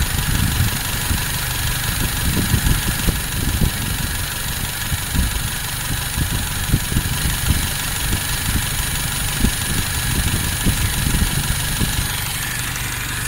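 Toyota 4K inline-four engine, fitted with a motorcycle carburetor, idling steadily at about 700 rpm with the carburetor freshly set and tuned.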